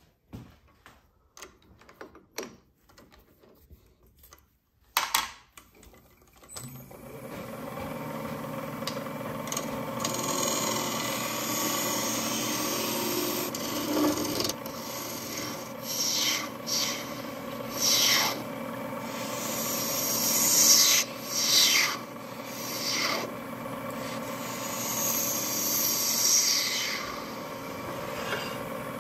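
Solid brass being cut on a wood lathe with a hand-held turning tool: a steady grinding scrape over the lathe's hum, growing loud and shrill in repeated swells as the tool bites. Before the lathe starts, about six seconds in, there are light clicks and taps of the brass pieces being handled and fitted together.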